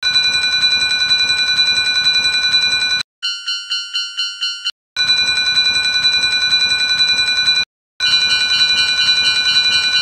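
Railroad crossing warning bells ringing in short blocks with brief silent gaps. A fast, continuous ringing alternates with a slower clang of distinct strikes, about four a second, heard around three to five seconds in.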